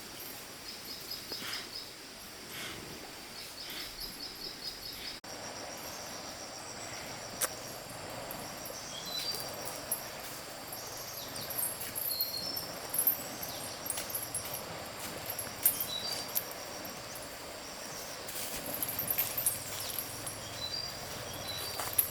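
Outdoor nature ambience: birds giving short high chirps and a fast pulsing trill over a steady high hiss, with a few light clicks; the background changes abruptly about five seconds in.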